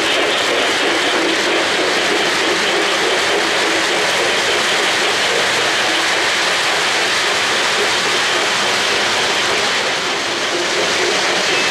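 Lionel O-gauge freight train of red and gray Pacemaker boxcars rolling past close by on three-rail track: a steady, even rumble and rattle of metal wheels on the rails. It eases slightly near the end.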